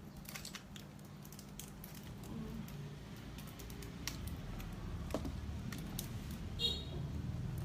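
Scattered light clicks and taps from handling and opening small plastic makeup packaging, thickest in the first couple of seconds and sparser after, over a low steady hum.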